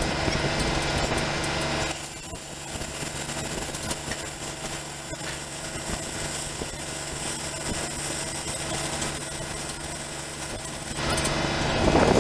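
An engine or similar machine running steadily, a continuous hum, louder for the first two seconds and again just before the end.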